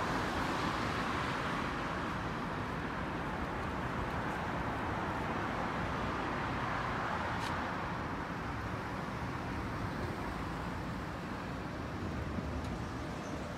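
Road traffic noise: a steady hum of cars on the road beside and under an elevated expressway.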